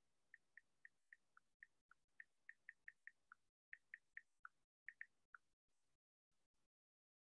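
Faint typing: about twenty short, irregular keystroke clicks over five seconds, which then stop.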